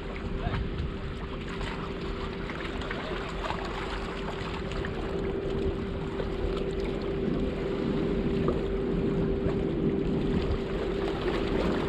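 Steady engine drone of a boat or ship on one unchanging pitch, growing a little louder in the second half, over a constant wash of harbour water against breakwater rocks.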